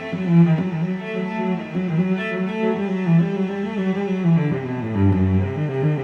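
Background music on low bowed strings, cello and double bass, playing sustained melodic notes; a deeper bass note comes in about four and a half seconds in.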